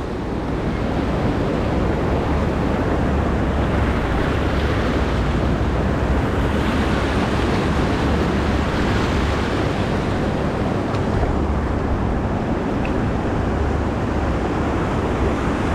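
Whitewater rapids rushing steadily, with wind rumbling on the microphone.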